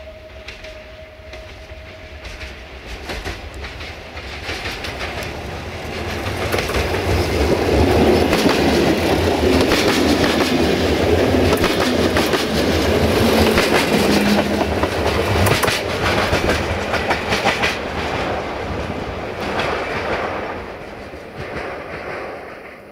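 TFC VT614 diesel multiple unit approaching and passing close by, its wheels clattering over the rail joints. The sound builds over the first several seconds, is loudest for about ten seconds as the cars go by, and then fades.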